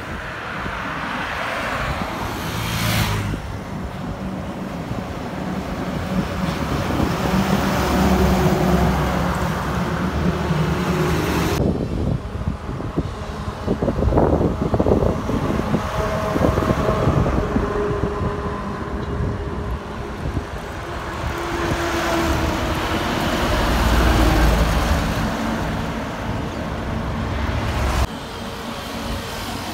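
Road traffic on a multi-lane highway: heavy diesel goods lorries and cars passing, engine drone and tyre noise swelling and fading as each vehicle goes by. The sound changes abruptly twice, where the recording is cut.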